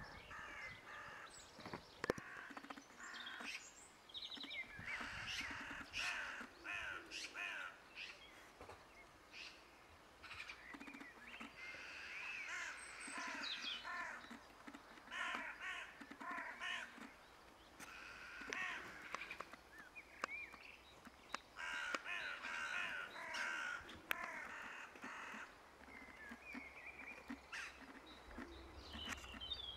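Magpies chattering: repeated bouts of rapid rattling calls, each lasting under a second to about a second.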